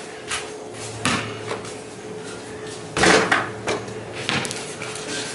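Basketball being dribbled and shot on a concrete court: a few scattered thuds and knocks, the loudest about three seconds in, over a steady low hum.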